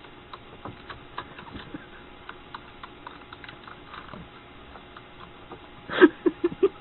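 Computer keyboard keys clicking: scattered light taps, then a quick run of about five louder clacks near the end.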